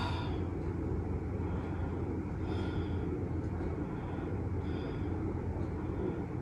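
Steady low rumble of room background noise, with a few faint short hisses about two and a half and five seconds in.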